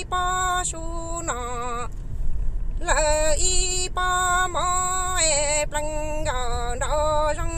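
A woman singing Hmong kwv txhiaj, the chanted sung poetry, holding long notes with a wavering vibrato, with a short pause for breath about two seconds in.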